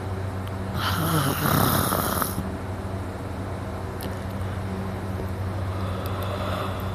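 A man snoring heavily in deep sleep: one loud, harsh snoring breath about a second in lasting over a second, and a weaker one near the end, over a steady low hum.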